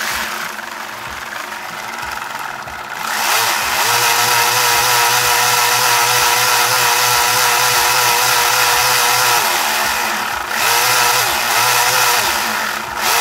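Small 3D-printed Roots blower driven by a 550 brushed drill motor, running on a flow test: it starts at part speed, goes up to full speed about three seconds in with a steady whine, eases off briefly about ten seconds in, then runs in two short full-speed bursts near the end.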